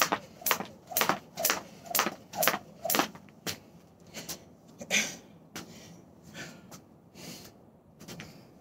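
A thin plastic-cable jump rope slapping the porch deck on each jump, about two slaps a second, stopping about three and a half seconds in. Softer rustling follows.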